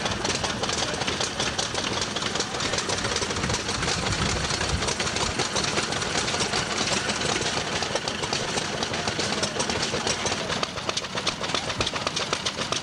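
Vintage single-cylinder stationary engines running, a fast, uneven clatter of knocks from their firing and working parts.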